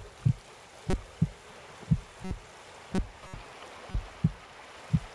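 Low, heavy thumps in a steady heartbeat rhythm, coming in pairs about once a second, over a faint steady hiss.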